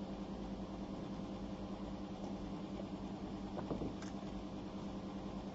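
Faint steady hum of background machine noise, with a few constant tones.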